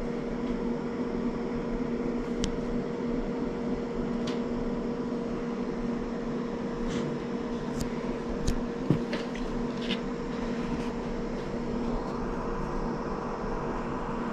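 Steady mechanical hum with a few faint clicks scattered through it.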